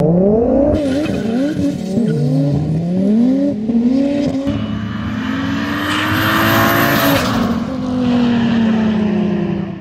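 A car engine racing hard at full throttle, its pitch climbing and dropping again and again over the first half, then rising in one long slow sweep. Tyres squeal around two-thirds of the way through.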